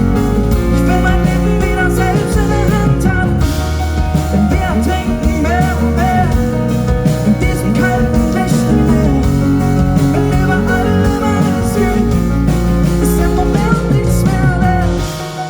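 Live acoustic pop music: strummed guitars with a singing voice carrying the melody, the level dropping right at the end.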